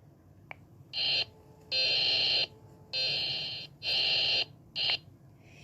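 An emergency alert alarm sounding in five buzzy pulses of uneven length, two short and three long, with short gaps between them. It starts about a second in and stops shortly before the end.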